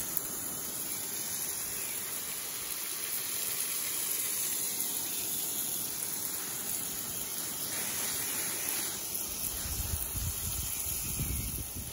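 Garden hose spray nozzle hissing steadily as it throws a fine mist over a flower bed. A low rumble comes in near the end.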